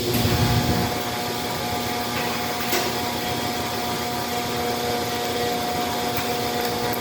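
Laundromat tumble dryer starting up with a low rumble, then running with a steady hum. There is a single click a little under three seconds in.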